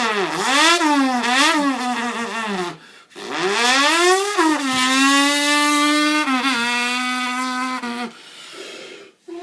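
A man's vocal impression of a Kawasaki Ninja 900 sport bike. First come several quick revs up and down. After a short break there is a long rising rev that settles into a steady high note, like a bike accelerating and holding speed, then fades near the end.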